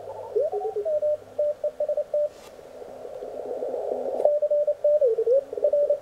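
Morse code (CW) signals from an Elecraft K1 transceiver's speaker: a keyed beep whose pitch slides up and down as the tuning knob is turned across signals, over band hiss that swells in the middle. From about four seconds in, a steady run of dots and dashes.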